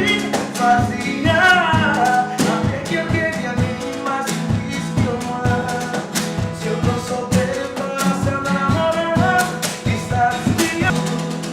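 An arrochanejo song with a male vocal over a steady drum beat and guitar, fading down near the end.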